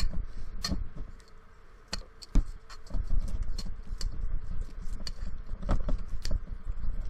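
A utensil stirring a glue-and-lotion slime mix in a stainless steel bowl as it is being activated. Irregular scrapes and sharp clicks sound against the metal, with a quieter stretch about a second in.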